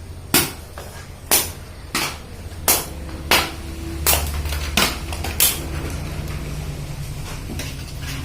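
A series of about eight sharp knocks, roughly one every two-thirds of a second, over a steady low hum; the knocks stop about halfway through and the hum goes on.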